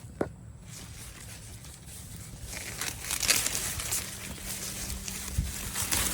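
Dry corn leaves and husks rustling and crinkling as the plants are handled, growing louder and busier from about two and a half seconds in, with one sharp click just after the start.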